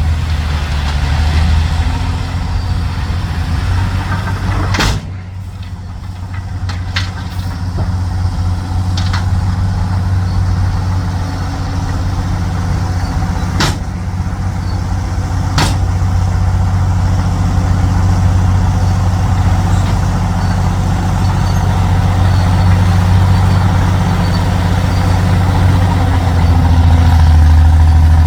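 Heavy dump truck's diesel engine running at a low, steady speed. There are a few sharp knocks or clicks, and a brief dip in level about five seconds in.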